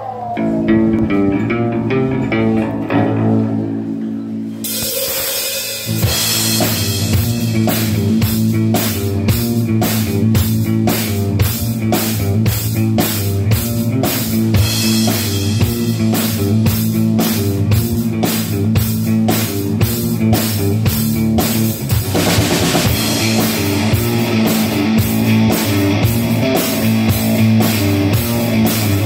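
Live rock band playing loudly through a PA. An electric guitar plays alone at first, then the drum kit comes in about four and a half seconds in and keeps a steady beat of bass drum, snare and cymbals under the guitar.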